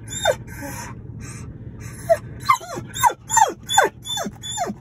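A dog whining over and over in eager excitement: high cries that each slide steeply down in pitch, one near the start, then a quick run of them packed close together through the second half.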